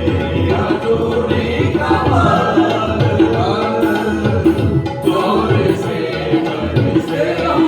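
Band music from a Hindi-Urdu Christian worship song, with voices singing over the instruments.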